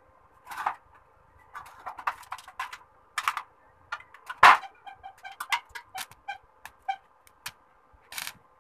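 Irregular sharp clicks and knocks on sheet steel, the loudest about halfway through, then a run of lighter clicks. Near the end, a short burst from a stick welder's arc as a plate is tacked onto the steel housing.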